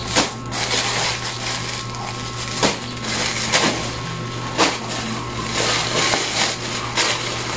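Plastic garment packaging crinkling and rustling as it is handled and opened, with several sharper crackles, over a steady low hum.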